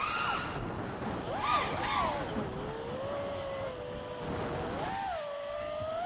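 FPV freestyle quadcopter's Axisflying 2207 brushless motors and props whining, the pitch swooping up and down with the throttle: sharp rises near the start and again about a second and a half in, a steadier stretch, then another rise about five seconds in.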